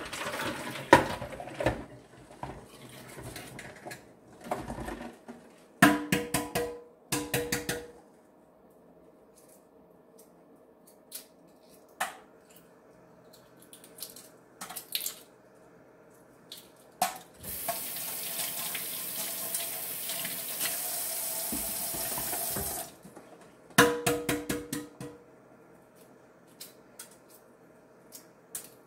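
Hands splashing through hard-boiled eggs in a bowl of ice water, with two bursts of clinking knocks against the bowl and small cracks and rustles of eggshell being peeled. Past the middle, a kitchen tap runs for about five seconds.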